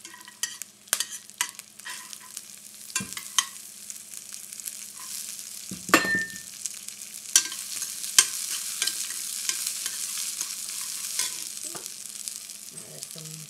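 Moong and green pea sprouts sizzling as they go into hot ghee tempering in a stainless steel pan, with a metal spoon clicking and scraping against the pan as they are stirred. One louder ringing clink comes about halfway through, and the sizzling grows louder after it.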